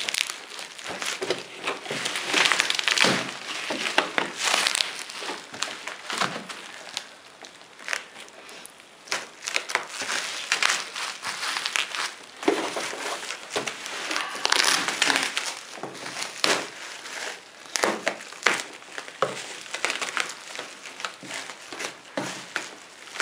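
Bubble wrap and plastic packaging being pulled off and crumpled by hand around a cardboard box, with irregular crinkling and crackling and sharp little snaps.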